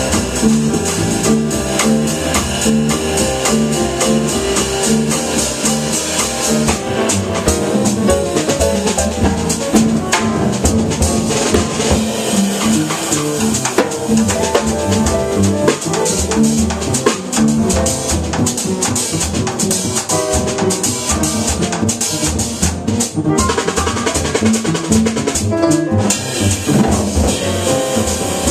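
Live jazz piano trio playing: grand piano, upright bass and drum kit, with busy drums and cymbals throughout.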